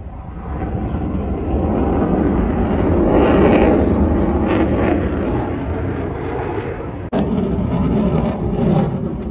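Kamov Ka-52 attack helicopter flying past: rotor and engine noise swells to a peak about three and a half seconds in, then fades. It breaks off abruptly for an instant about seven seconds in and resumes.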